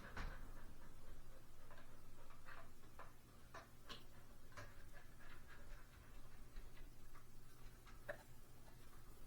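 Light, irregular clicks and ticks, about one or two a second, from taking out the screws that hold a ceiling fan's switch housing, over a faint steady low hum.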